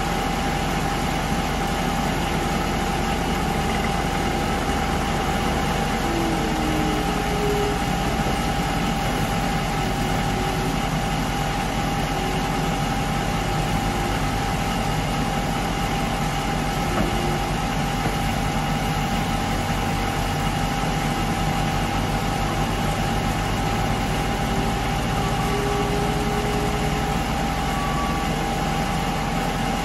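Diesel engine idling steadily at an even level, with faint tones rising and falling now and then as other diesel machinery works.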